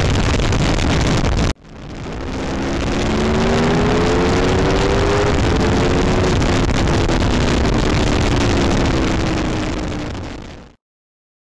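Motorcycle at motorway speed: heavy wind rush on the microphone with the engine note rising as the bike accelerates, then slowly falling as it eases off. The sound breaks off once about a second and a half in and fades out to silence near the end.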